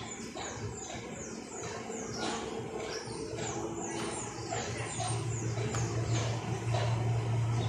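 A bird calling in a fast, even run of short falling chirps, about three a second, over a low steady hum that grows louder in the second half.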